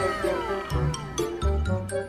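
Background music with a steady beat; a sliding tone falls away in the first moment.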